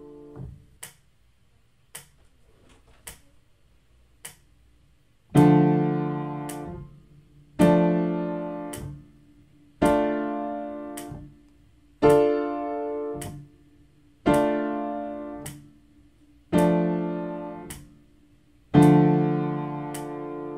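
Piano, left hand, playing the D minor triad through its inversions up and back down: seven chords about two seconds apart, each struck and left to ring. Four evenly spaced clicks count in before the first chord, and a click falls between each chord and the next.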